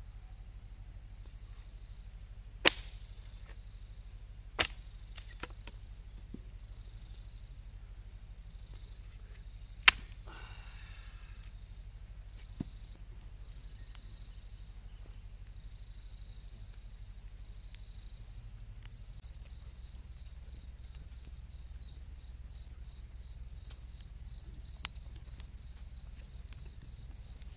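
Steady high chirring of a cricket chorus, broken by a few loud, sharp cracks of wood from a freshly lit campfire, the loudest about three and ten seconds in.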